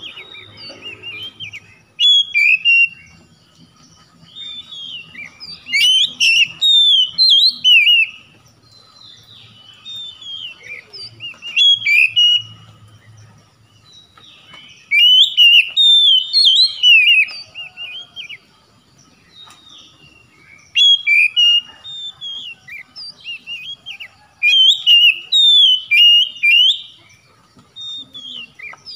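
Oriental magpie-robin singing: loud, varied whistled phrases in bursts of one to three seconds, coming again every few seconds with quieter gaps between.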